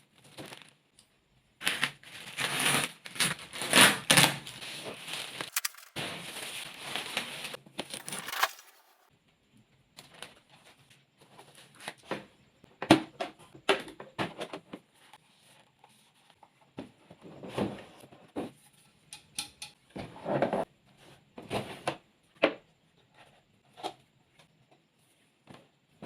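Unboxing a water gel blaster: packaging rustling and clattering densely for about six seconds, then scattered clicks and knocks of its plastic parts being handled.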